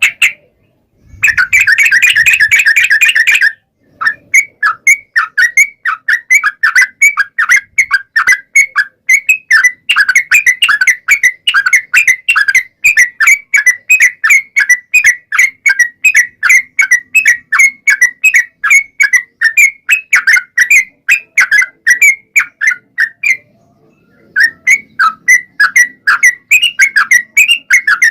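Yellow-vented bulbul (trucukan) singing its long rolling song: first a short dense chatter, then a long run of quick whistled notes, about four or five a second, broken by a short pause near the end.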